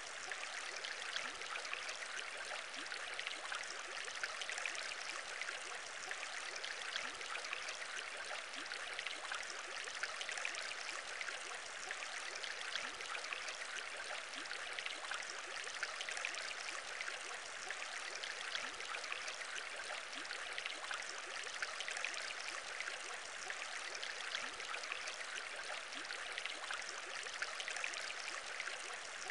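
Aquarium bubbling: a steady, dense stream of many small bubbles in water.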